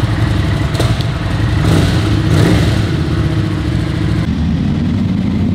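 Cruiser motorcycle engine running at low revs as the bike is ridden slowly, with a brief rise in revs about two seconds in.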